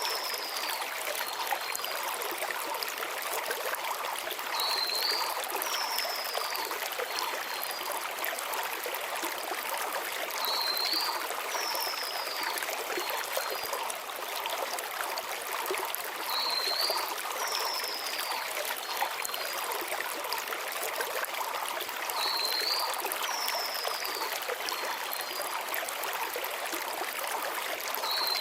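Shallow mountain stream flowing steadily over stones. A small bird's short call, a quick wavering note followed by a falling slur, repeats about every six seconds.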